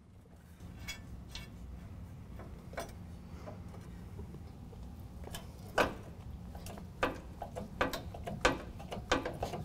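A length of angle iron bolted to a 2014–2015 Chevy Silverado 1500's frame horn is levered back and forth to break the top weld, with metal creaking and clicking. The sharp clicks grow louder and more frequent in the second half; the loudest comes about six seconds in.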